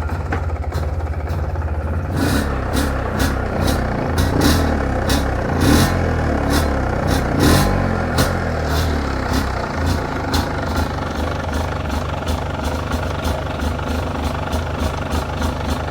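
MZ ETZ 251's single-cylinder two-stroke engine running, with a few louder swells from the throttle in the middle. The exhaust connector is freshly sealed with high-temperature silicone, and there is no leak noise from it.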